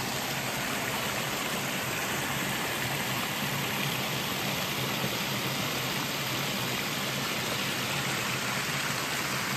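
Shallow woodland creek spilling over a low weir, a steady rushing of water.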